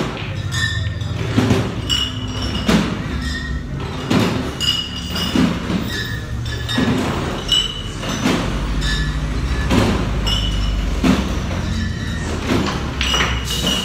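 Music playing, with a repeated beat and short high notes recurring at the same pitches, over a low steady hum. Occasional knocks come from the pool game.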